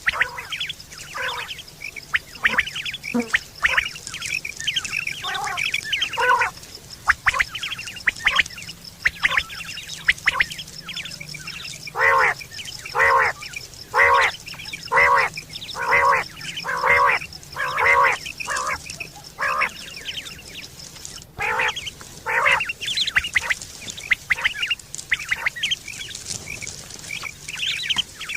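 Quail calling over and over in short harsh notes, in a quick irregular series at first, then steadily about once a second, then after a brief pause in a looser series. A faint steady high hiss runs underneath.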